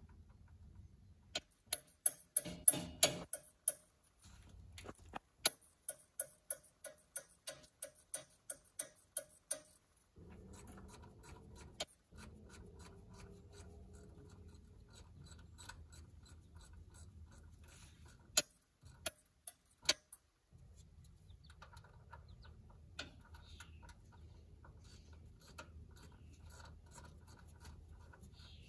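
Ratchet wrench clicking in runs of evenly spaced clicks, about two a second, with pauses between runs; the loudest clicks come in the first few seconds. A few sharper single knocks come about two-thirds of the way through.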